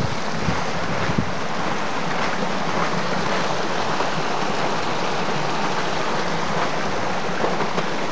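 Small woodland brook rushing and splashing over mossy rocks: a steady rush of running water.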